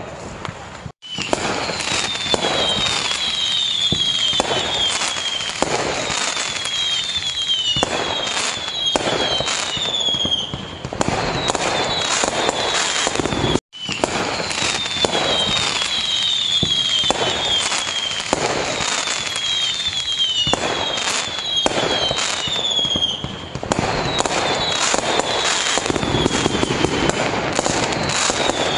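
Fireworks display: a dense, continuous barrage of bangs and crackling, with repeated short falling whistles running through it. The sound drops out for an instant twice, about a second in and again about halfway through.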